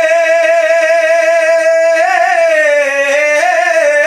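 Male kavishari singing: a long held note at the end of the refrain line, which starts to slide and waver in pitch about two seconds in.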